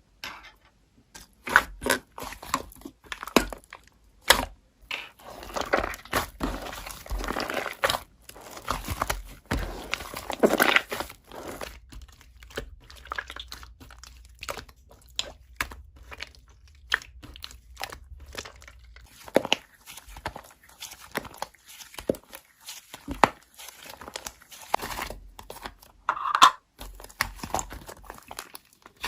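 Slime being squished, poked and stretched by hand, making irregular crackling and popping clicks.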